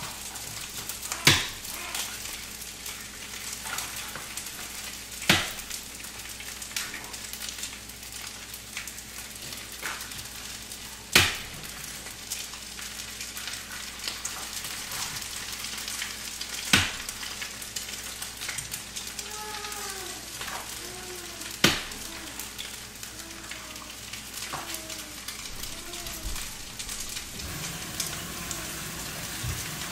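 Rice sizzling steadily as it fries in a large frying pan, with five sharp knocks a few seconds apart as eggs are cracked on the pan's rim.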